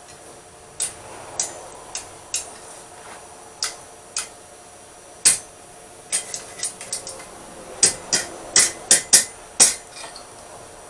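Hand hammer striking hot steel on an anvil with sharp, ringing blows. The strikes are irregular and spaced out at first, then come louder and closer together in the last few seconds.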